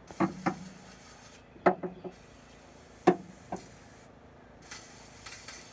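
Spray cleaner hissed onto an exhaust in three bursts, the last one the strongest near the end, with a few sharp clicks and knocks between them.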